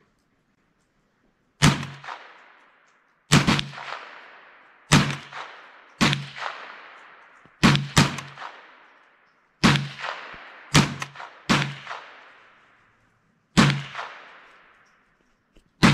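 Smith & Wesson M&P 15-22 semi-automatic .22 LR rifle firing about eleven single shots at an unhurried, uneven pace, each sharp crack trailing off in a long echo.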